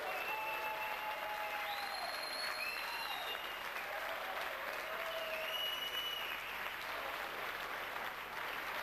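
A crowd applauding, with long, high-pitched whistles and shouts carrying over the clapping.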